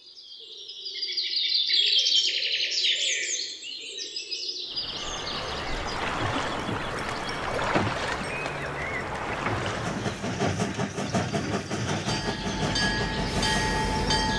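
Birds chirping, then, about five seconds in, a train running past: a steady rumble with a rhythmic rattle of wheels on rails. Thin steady tones come in near the end.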